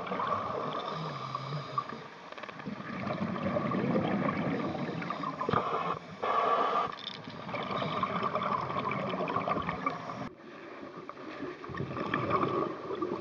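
A scuba diver's breathing heard underwater: regulator breaths and the rush and gurgle of exhaled bubbles, coming in long surges with short lulls between them.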